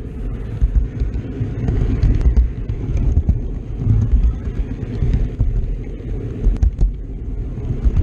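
Model train rolling along its track, heard through a camera riding on the train: a steady low rumble from the wheels and the car, with a few sharp clicks as the wheels pass rail joints and turnouts.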